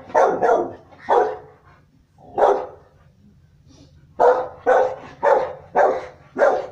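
Rottweiler barking: nine loud, deep barks, four spaced out, then after a short pause a quick run of five at about two a second.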